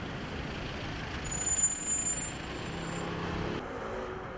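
Street traffic noise, a steady rumble of vehicles, with a thin high squeal starting about a second in and lasting nearly two seconds. The sound changes abruptly near the end.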